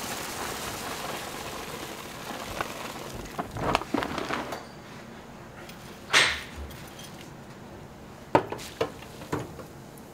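Raw cashew nuts pouring from a plastic bag into a wire fryer basket, a dry rattling shower. It is followed by scattered clicks and rustles, one loud rustle about six seconds in, and a few sharp knocks near the end as the nuts are handled in the basket.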